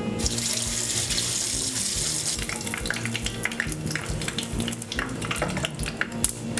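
A meatball sizzling in hot butter in a pot: a dense hiss as it goes in, settling after about two seconds into steady crackling and popping.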